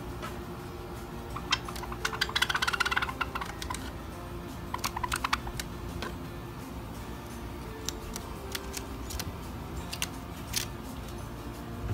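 Java sparrows making rapid clicking sounds: a dense run of clicks about two seconds in, a shorter run about five seconds in, then scattered single clicks.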